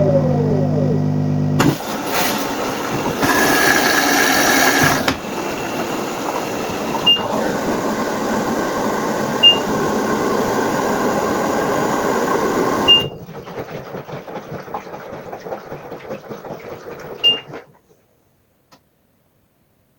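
LG top-loading washing machine running, with several short, high beeps. The sound cuts off near the end.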